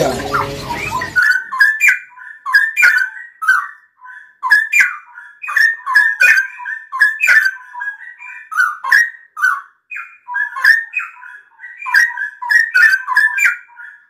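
Straw-headed bulbul (cucak rawa) singing: a long, loud run of short whistled notes, with sharp clicks among them. The surrounding noise drops out about a second in, and the song stops abruptly at the end.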